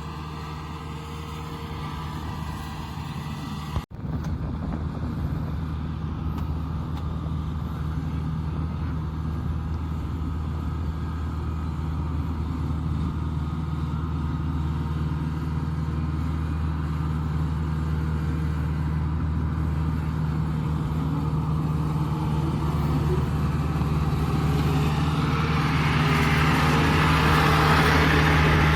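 Kubota DC-70 combine harvester's diesel engine and machinery running steadily with an even low hum, slowly growing louder, with a hiss rising over it near the end. The sound breaks off for an instant about four seconds in.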